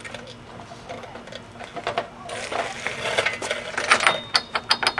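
Metal hand tools clinking while they are set on the car's front axle nut, then a fast run of sharp metallic clicks, about five or six a second, from about four seconds in.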